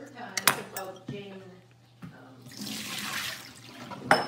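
A few knife chops through green beans on a wooden cutting board, then about a second of running water, and a sharp knock near the end.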